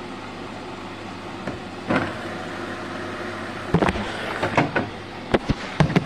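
Bosch Serie 4 front-load washing machine running early in its wash cycle: a steady running noise with a low hum, broken by several irregular knocks and thumps, the loudest from about the middle to near the end.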